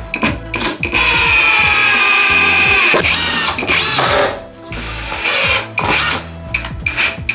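Cordless impact driver driving screws into a softwood timber frame: one long run of about two seconds starting a second in, its whine bending in pitch as it winds down, then a few shorter bursts near the end.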